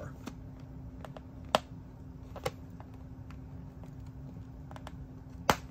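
Scattered sharp clicks and taps of a plastic Barbie doll being handled, the loudest about one and a half seconds in, again near two and a half seconds, and once more near the end, over a faint steady low hum.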